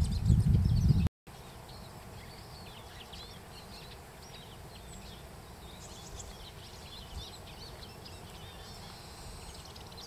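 Tits at a bird feeder, blue tits and great tits, giving many short, high chirping calls that overlap throughout. During the first second a loud low rumble lies under them and cuts off abruptly.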